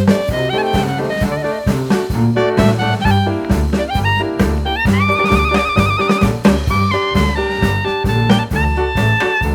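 Background music: an upbeat jazz tune with a steady drum beat and a brass or saxophone melody, including one long note with vibrato near the middle.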